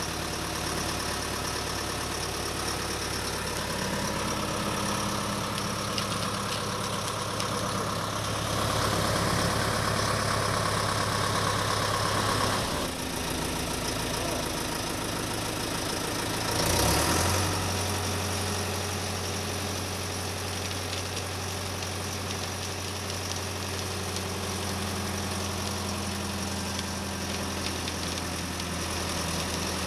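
Engine idling with a steady low hum. It brightens for a few seconds, shifts about two-thirds of the way through, and there is a brief louder surge about 17 seconds in.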